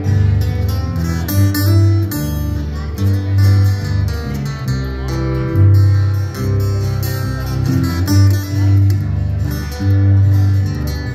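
A live band playing an instrumental passage, with guitar over a prominent bass line, heard in the room through the PA.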